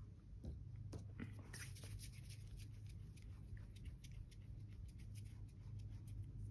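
Faint soft rubbing and light clicks of palms rolling small balls of air-dry clay, over a low steady hum.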